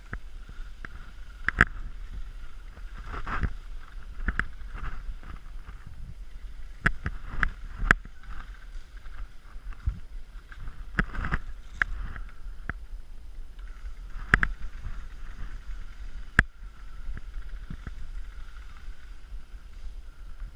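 Scattered single sharp snaps of airsoft gunfire, about ten in all at irregular intervals, over steady rustling of movement and wind on the microphone.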